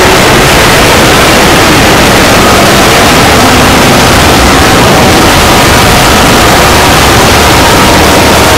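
Harsh, heavily distorted 'scary' sound effect at maximum loudness: a steady, clipped wall of noise across all pitches, with a few faint steady tones buried in it.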